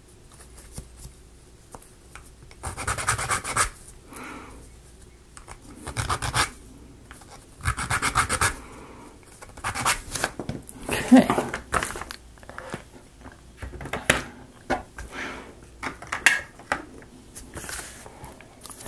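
A small flat hand file rasping across the teeth of a laser-cut plywood gear in short bursts of quick strokes with pauses between, cleaning leftover bits off the cut edges.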